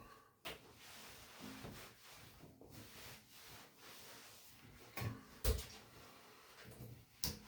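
A few sharp knocks and bumps in a small bathroom, the loudest about five and a half seconds in, over a faint steady hiss.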